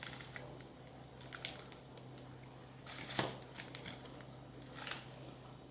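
Scattered small clicks and crinkling rustles of hands handling objects, the loudest cluster a little past halfway, over a faint steady low hum.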